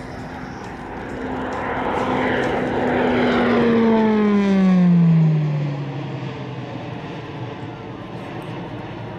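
E-2C Hawkeye's twin turboprop engines and propellers passing by: a steady propeller drone grows louder, then drops in pitch as the aircraft goes past, loudest about five seconds in, then settles into a lower, fainter drone as it moves away.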